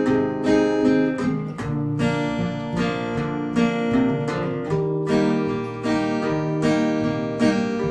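Acoustic guitar strumming chords in a steady rhythm through an instrumental break in a folk song, with no singing.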